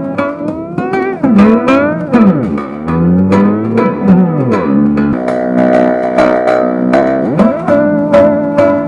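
Music with a steady beat and a plucked, guitar-like lead that slides up and down in pitch. About halfway through it settles into a held chord for a couple of seconds before the sliding resumes.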